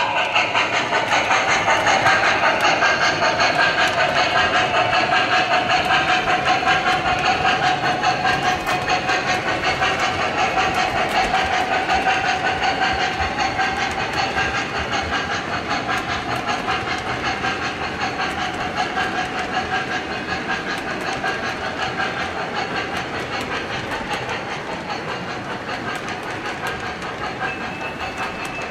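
O-gauge model steam train running past: wheels clicking over the rail joints and the locomotive's sound system chuffing and hissing, fading slowly as it moves away.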